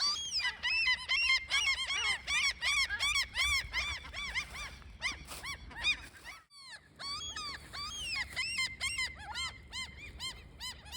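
Many small birds chirping rapidly and continuously, short sharp calls overlapping several to the second, with a brief break a little past the middle.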